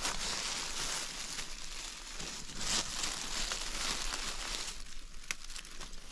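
Dry forest undergrowth rustling and crackling as someone moves through it, with scattered snaps; it quiets about five seconds in.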